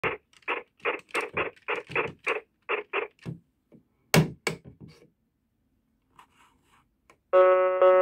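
Plastic keys of a 1980s Chicco children's toy typewriter pressed in quick succession, about four a second for three seconds, then two loud thunks as the lever on its carriage is worked. Near the end the toy's speaker starts an electronic melody.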